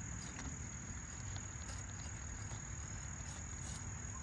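Steady high-pitched insect trill, with faint scattered scrapes and clicks of a hatchet blade working along a small piece of wood.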